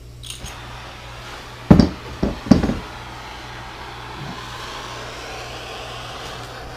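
Soldering torch burning with a steady hiss. Three or four loud knocks come between about one and a half and three seconds in, and a low hum runs underneath.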